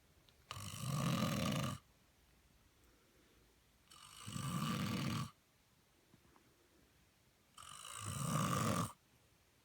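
A man snoring: three long snores about three and a half seconds apart, each lasting over a second.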